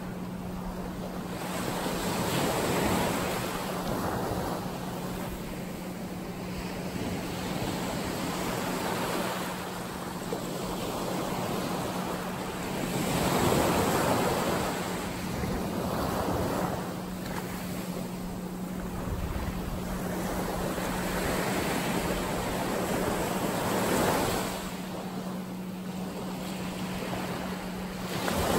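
Ocean surf washing in surges every few seconds, with a steady low hum underneath.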